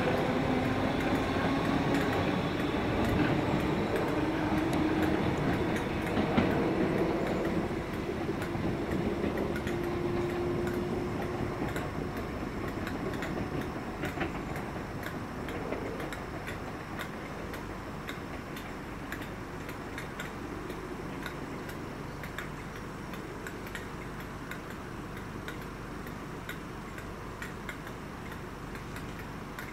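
Merseyrail third-rail electric train pulling away: its traction motor whine rises steadily in pitch over the first ten seconds or so, then the running sound slowly fades as the train draws off. Light ticking clicks go on under it.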